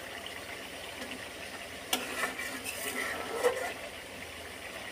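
A spatula stirring and scraping through thick, reduced duck curry in a metal pot, with a sharp knock against the pot about two seconds in and a few more scrapes after it. A low steady hiss from the simmering curry runs underneath.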